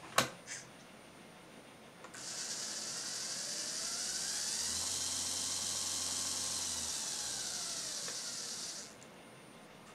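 A sharp click, then about two seconds in two small brushed DC gear motors spin up with the throttle, their whine rising in pitch, run steadily at speed, and wind back down, stopping about nine seconds in.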